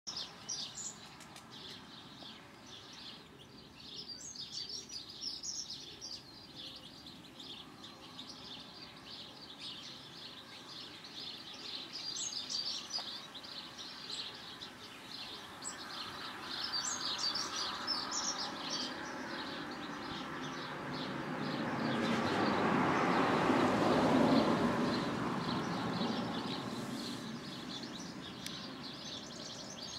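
Garden birds chirping and singing on and off. About two-thirds of the way through, a broad rushing noise swells up over several seconds and fades away again.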